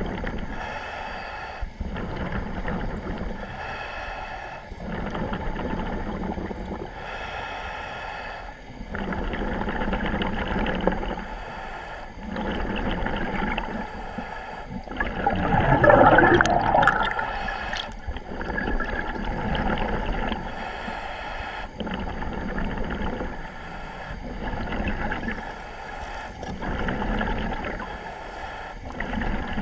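Diver breathing through surface-supplied diving gear, heard over the dive radio: a hissing breath and a bubbling exhaust every three seconds or so. A louder gurgling surge of bubbles comes about halfway through.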